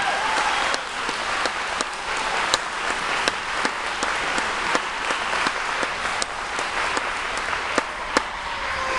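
Audience applause in a hall, a steady wash of many hands clapping, with one nearby clapper standing out in sharp claps about three a second.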